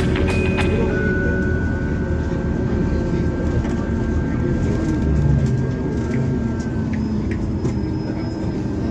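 Bus running, a steady low engine and road rumble with a faint thin whine above it that fades out after about six seconds.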